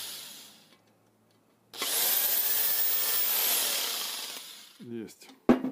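Cordless drill-driver driving a bolt into a metal plate: a short first burst, then a run of about three seconds whose motor whine rises as it speeds up and falls away as it stops. A sharp click follows near the end.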